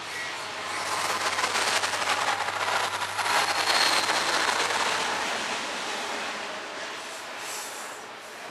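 Norfolk Southern freight train passing close by at speed. Its lead GE Dash 9-40CW and trailing diesel locomotives grow loudest about three to four seconds in, with a brief high squeal at that point. The rushing rumble of double-stack container cars follows and slowly fades.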